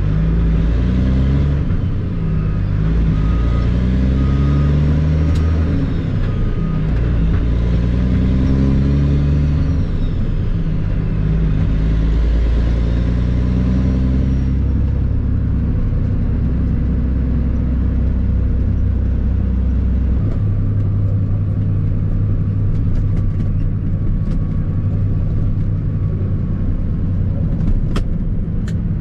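Tri-axle dump truck's turbo diesel engine pulling through the gears: its pitch climbs and drops back with each upshift, several times over the first half, then it settles into a steady drone while cruising.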